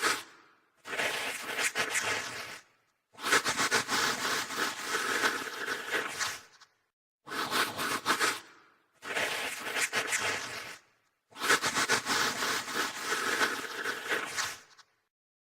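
Scratching, rasping strokes in a run of separate bouts of one to three seconds each, cut apart by short dead silences.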